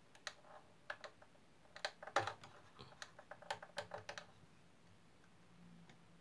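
A run of small, irregular clicks and taps from fingers handling the tiny plastic and metal parts of a 1/18 diecast truck cab at its open door, working the seat armrest. The clicking stops about four seconds in.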